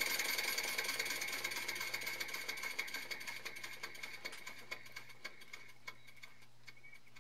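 Gas-fired live steam model 0-4-0 Hunslet saddle tank running with its wheels turning free: a rapid ticking of the cylinders and inside Stephenson valve gear with a steady high tone, slowing and fading until it stops near the end.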